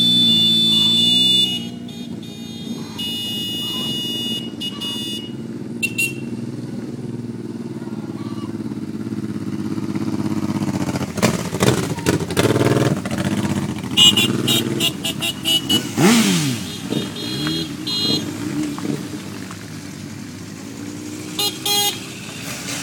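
A group of motorcycles pulling away one after another and riding past close by, engines revving up as each passes. Several runs of high, quickly repeated beeping, which sound like horn toots, come near the start, about two-thirds of the way in and near the end.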